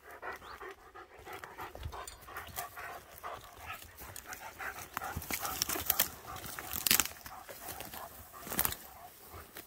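German shepherd panting in quick rhythmic breaths after running, with dry twigs and forest litter crackling underfoot.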